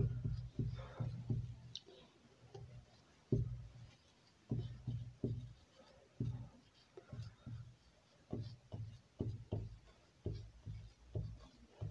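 Marker writing on a whiteboard: a string of short, dull strokes and taps, a few a second, with brief pauses between words.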